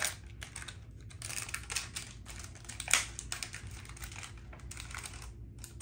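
A child's fingers picking at and tearing open a crinkly plastic snack wrapper: irregular crackles and ticks, with one sharper crack about three seconds in.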